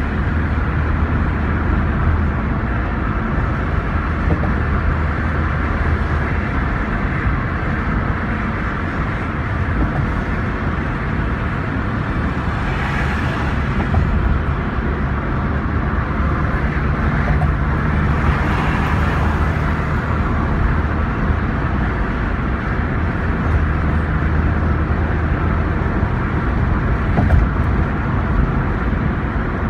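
Steady road noise from inside a moving car: a low engine hum under tyre rumble, with two brief swells of hiss near the middle.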